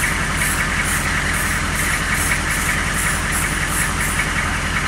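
A 6.2 V8 engine running steadily at low idle, its cold-start high idle having just dropped out, with an even, repeating clatter over the rumble.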